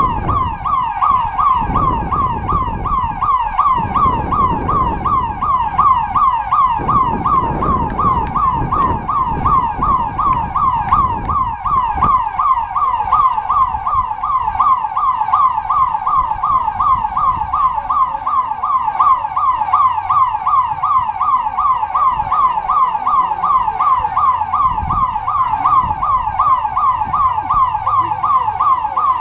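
Electronic alarm siren sounding without pause: a loud, fast, repeating falling whoop, about three a second. A low rumble on the microphone sits under it for roughly the first half.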